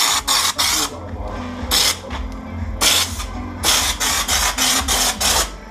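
Compressed-air schutz gun spraying U-Pol Raptor bedliner in short repeated hissing bursts, with a quick run of bursts near the end, over a low steady hum.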